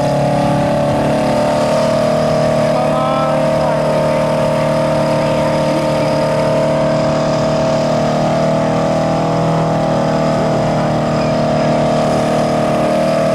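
Several demolition derby cars' engines idling together, a loud, steady drone of overlapping engine tones.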